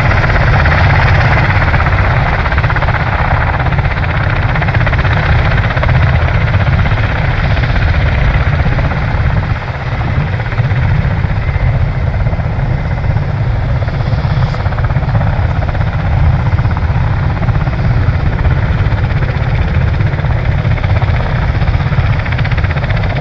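Marine Corps MV-22 Osprey tiltrotors running on the ramp with their proprotors turning: a loud, steady rumble.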